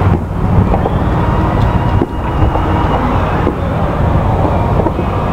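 Distant aerial fireworks display: a couple of muffled bursts, about half a second and two and a half seconds in, over a steady low rumble.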